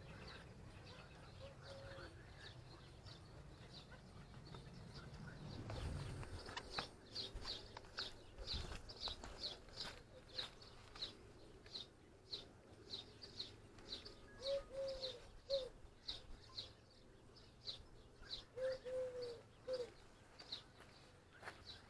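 Songbirds chirping, quick high chirps repeated many times from about six seconds in, with a dove cooing twice in the second half. A brief low rumble comes about six seconds in.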